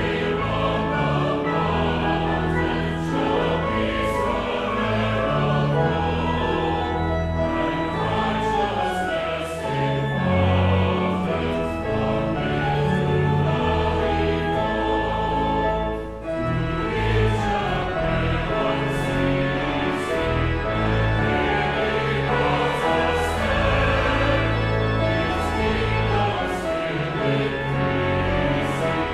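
Church choir singing a hymn in full voice over sustained organ accompaniment, with a brief breath between lines about sixteen seconds in.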